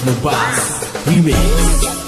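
DJ remix dance music with a heavy bass line that drops out for about a second, filled by sweeping effects, before the bass comes back in.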